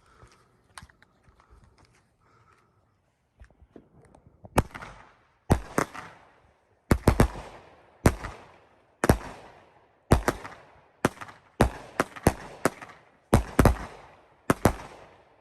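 A 16-shot consumer firework cake (Phantom Fireworks Emerald City) firing its shots one after another, each a sharp bang followed by a fading tail. The bangs begin about four and a half seconds in and come roughly once a second, sometimes in quick pairs.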